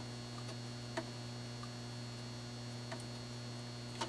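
Steady low electrical mains hum, with three faint clicks about a second in, at three seconds and near the end.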